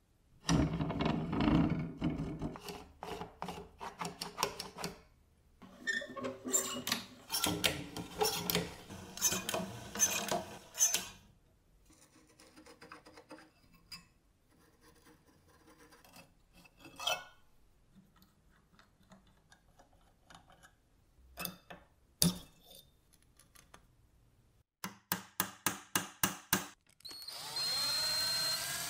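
Metal parts of an antique cast-iron and aluminium cheese slicer handled and taken apart by hand: clattering, scraping and clinking, loudest in the first ten seconds or so, then scattered small clicks as a screw is worked out of the crank handle, and a quick run of sharp clicks. Near the end a drill press motor starts, its whine rising in pitch and then holding steady, ready to drill into the crank handle's hub where penetrating oil and heat did not free it.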